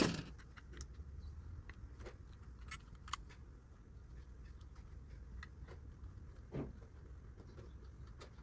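Faint scattered clicks and light taps of small metal contact pins being handled on a washing machine motor, over a low steady hum, with one sharper click right at the start.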